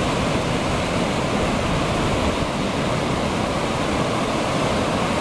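Ocean surf breaking and whitewater rushing up the shore, a steady, unbroken rush of water noise.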